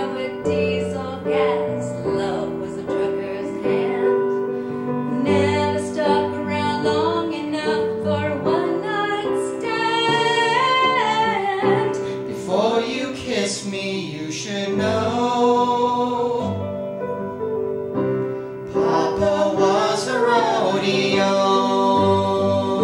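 A woman and a man singing a duet into microphones over an instrumental accompaniment of long held chords, the woman's voice with a wide vibrato.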